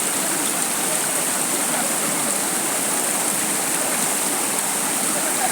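Floodwater rushing steadily, a loud, even noise with no breaks.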